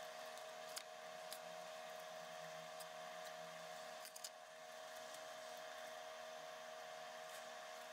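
Faint steady hum with a few soft clicks and handling noises as hands stuff carrots, celery and onion into a raw turkey's cavity.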